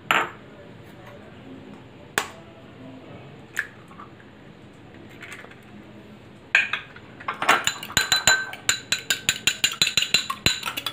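An egg knocked against the rim of a glass bowl to crack it: three separate sharp knocks in the first four seconds. Then, from about six and a half seconds in, a metal fork beats the egg in the glass bowl, quick clinks of metal on glass about five a second.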